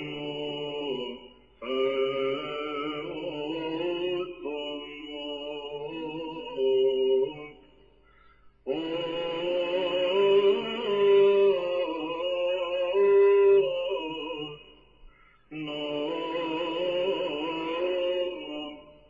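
Religious chant sung in long phrases with held notes, broken by short pauses roughly every six seconds.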